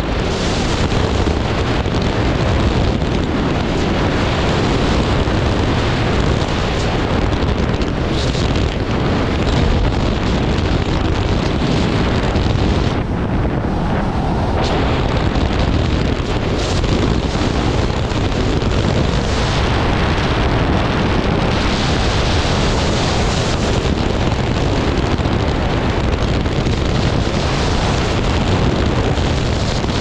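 Loud, steady wind noise from airflow rushing over the microphone of a paraglider in flight.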